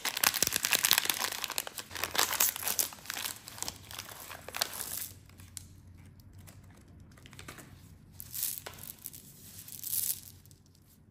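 Plastic candy bag crinkling loudly as gloved hands pull it open. The crinkling thins out about five seconds in, leaving faint rustles and two short louder bursts near the end.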